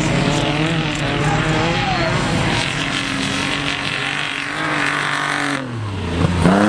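Autocross cars' engines running hard on a dirt track, several engines revving and changing pitch as the cars race past. Near the end one engine drops in pitch and then revs up sharply.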